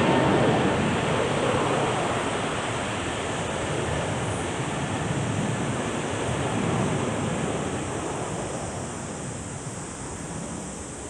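Jet aircraft engine roar, loudest at the start and slowly fading as the plane moves away.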